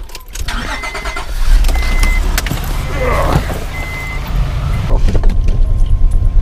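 A car engine runs with a steady low rumble while a short high warning chime beeps about four times, typical of a door left open. A few clicks and knocks come from someone climbing into the back seat.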